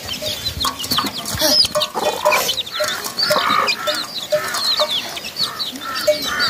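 A hen clucking among her chicks, which keep up a constant run of short, high peeps.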